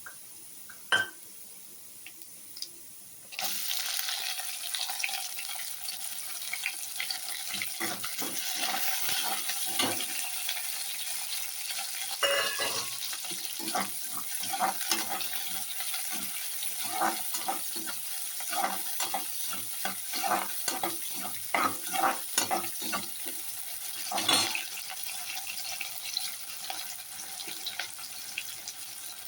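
Food frying in a pan: a steady sizzle that starts suddenly a few seconds in, with a spoon repeatedly scraping and knocking against the pan as it is stirred. Two sharp clicks come before the sizzle.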